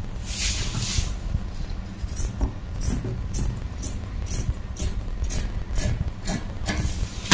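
Scissors cutting through printed fabric: a rustling cut near the start, then a steady series of short crisp snips, about two a second.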